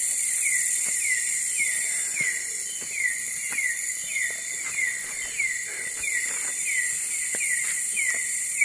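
Night-time tropical forest insect chorus: a steady high-pitched shrill, with a short falling chirp repeating about twice a second. Scattered faint clicks and crackles sound under it.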